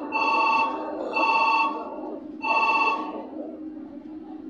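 Telephone ringtone ringing: three short electronic rings, each about half a second long and about a second apart.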